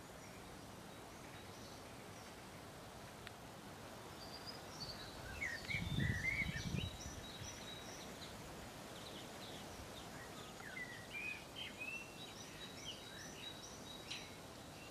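Small songbirds chirping and singing, many short high calls and trills over a faint outdoor hush, with a brief low rumble about six seconds in.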